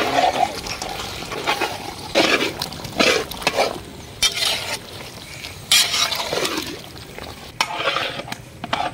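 A long wooden paddle stirring raw chicken pieces into thick masala paste in a large iron kadai over a low frying sizzle, with irregular scrapes and knocks against the pan.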